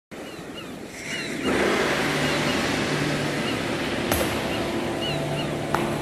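Ocean surf washing on a beach, a steady rushing that grows louder about one and a half seconds in, with short high bird chirps repeating over it.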